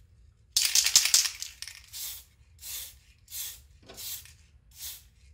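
Aerosol spray-paint can spraying inside a clear Lexan RC car body: one longer, louder burst of hiss about half a second in, then a run of short blasts about every two-thirds of a second.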